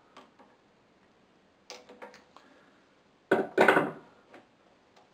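Hand tools clicking and knocking against the carburettor and linkage of a small engine. There are a few light clicks, then a louder short clatter of metal and plastic about three and a half seconds in.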